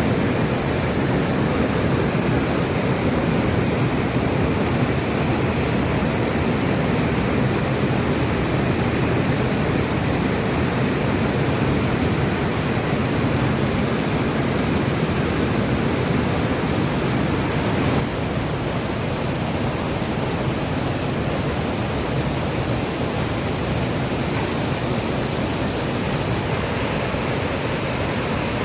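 Waterfall: a steady rush of falling water that dips slightly in level about eighteen seconds in.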